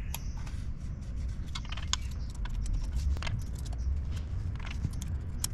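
Scattered light metallic clicks and taps from a thickness (feeler) gauge and hand tools working the valve rockers of a Maybach six-cylinder engine during a valve-clearance check. A steady low hum runs underneath.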